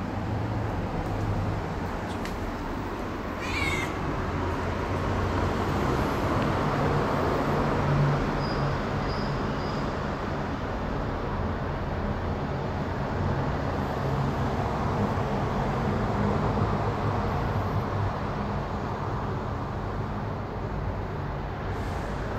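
Domestic cat purring steadily while being stroked, a continuous low rumble, with one short high meow-like chirp about three and a half seconds in.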